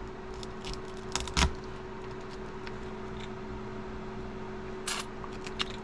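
Small sharp clicks and ticks of a pry tool working under a cell phone part held by stout adhesive, a handful in all, the loudest about a second and a half in and another near the end, over a steady low hum.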